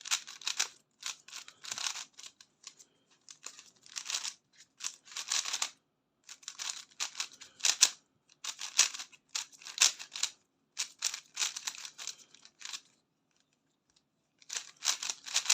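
Qiyi Warrior S 3x3 speed cube being turned quickly: its plastic layers clack in rapid runs of turns, with short pauses between runs and a longer pause near the end.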